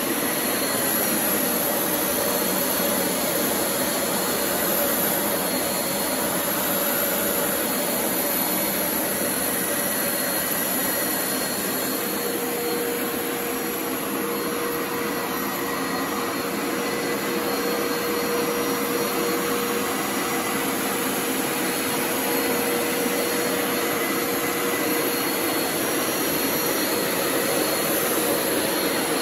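Hoover SpinScrub 50 Power Scrub Deluxe carpet cleaner running steadily while being pushed over carpet: an even rush of suction with a steady motor whine.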